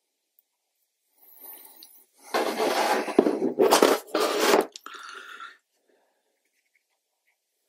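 A stiff sheet of paper rustling and crackling as it is lifted and moved aside. It is loud for a couple of seconds starting about two seconds in, with a few sharp clicks, then a fainter rustle.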